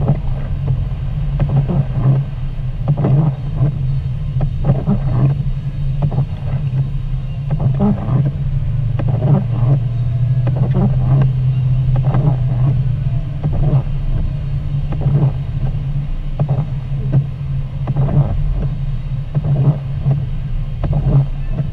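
Car driving on a wet road, heard inside the cabin: a steady low engine and tyre drone with frequent irregular taps and knocks over it.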